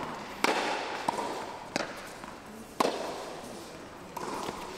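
Tennis ball hit back and forth in a doubles rally: three sharp racket-on-ball hits about a second apart, with a lighter knock between the first two.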